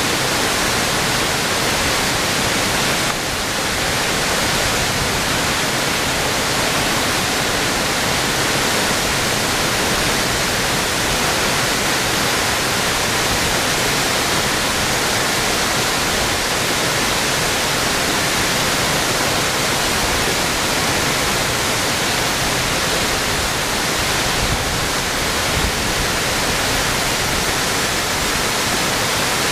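Tall waterfall pouring in several streams down a cliff onto rocks: a loud, steady rush of falling water.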